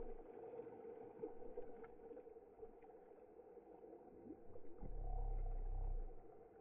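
Muffled pool water sloshing and lapping at a camera held at the water's surface, over a steady hum, with a louder low rumble of water for about a second near the end.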